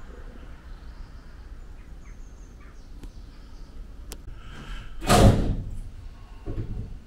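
A loud, dull bang about five seconds in and a softer one about a second later, over a low rumble.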